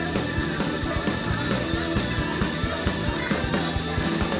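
Live band music with a steady drum beat under sustained chords.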